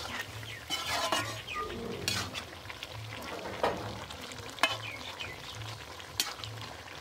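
Metal slotted spatula stirring pork and radish curry in a large wok, scraping and knocking against the pan about six times, over a steady sizzle of frying.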